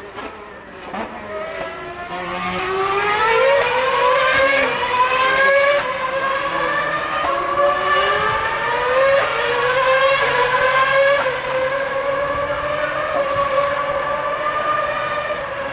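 2013 Formula One car's 2.4-litre V8 at high revs. Its pitch falls early on, then climbs repeatedly through the gears, dropping sharply at each upshift.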